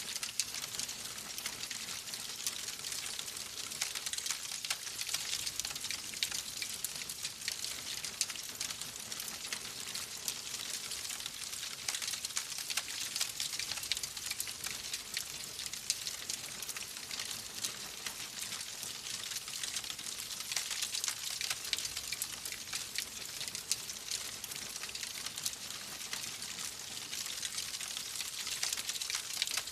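Wood fire crackling steadily in a fireplace: a dense stream of small pops and snaps over a soft hiss.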